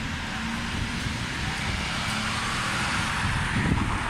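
Outdoor city ambience: a steady rush of traffic noise that swells slightly in the middle, over an uneven low rumble of wind on the microphone.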